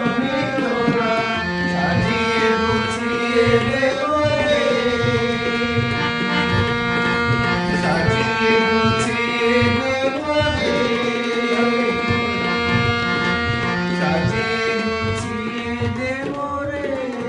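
Harmonium playing sustained chords and melody while a man sings long, sliding notes over it, with a steady drum rhythm underneath.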